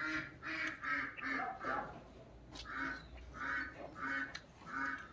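A duck quacking over and over in a steady run of short raspy calls, two or three a second.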